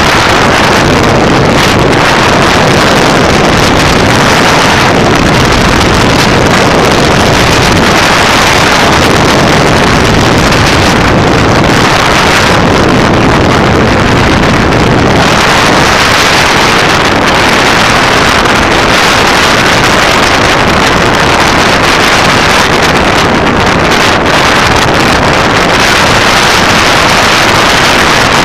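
Loud, steady wind rush on the microphone of a camera mounted on a motorcycle riding at road speed, with the motorcycle running underneath.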